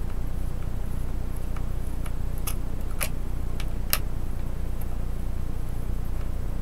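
Small Phillips screwdriver working screws out of a laptop's base: faint scattered ticks and three sharper clicks around the middle, over a steady low hum.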